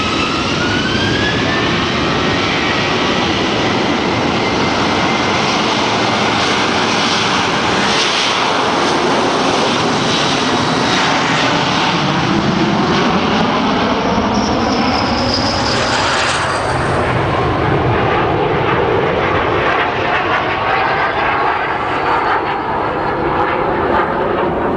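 Boeing P-8A Poseidon's twin CFM56 turbofans spooling up to takeoff thrust with a rising whine, then loud, steady jet noise as the aircraft rolls down the runway and lifts off. Its high whine falls in pitch about fifteen seconds in as it moves past.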